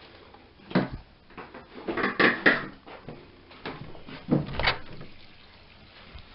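Knocks and scrapes of a door being opened and shut, in three bursts: about a second in, around two seconds, and about four and a half seconds in.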